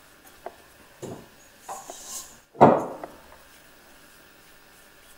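Light handling sounds of hands shaping balls of dough and setting them down on a baking tray: a few soft knocks and a brief rub, with one louder knock about two and a half seconds in.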